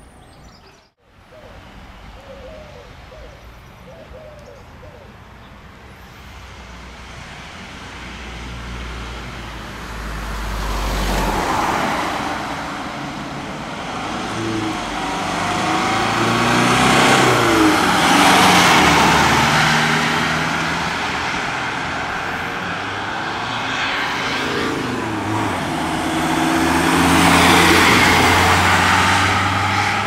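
Ambulances, among them a Mercedes-Benz Sprinter, driving past one after another, their engines and tyres swelling and fading three times as each goes by.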